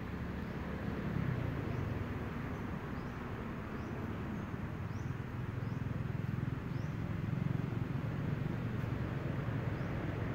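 Steady low outdoor rumble with a few faint, short high chirps now and then.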